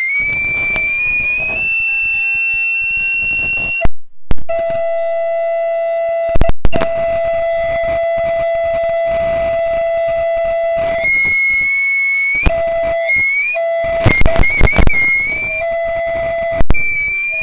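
Audio feedback howl: shrill sustained tones that slide in pitch, then settle into a steady lower tone through the middle. Loud pops and crackles come about four seconds in, again about six seconds in, and in a cluster near the end.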